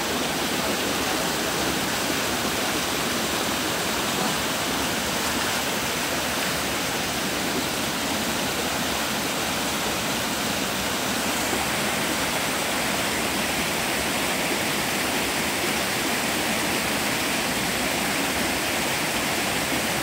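Rocky stream rushing over boulders and a small drop, a steady, unbroken rush of water.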